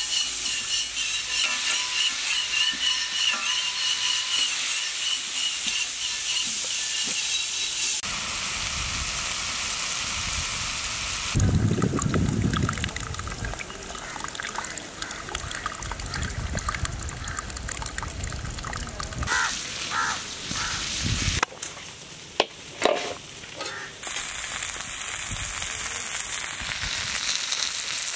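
Water gushing out of the ground in a steady rush, then a few sharp knocks, then chicken pieces sizzling on a hot iron griddle over a wood fire near the end.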